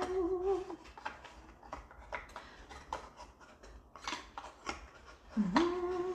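A person humming a wavering note, breaking off after about a second, then light clicks and taps of cardboard kit pieces being handled and fitted together. Humming starts again near the end, rising and then held.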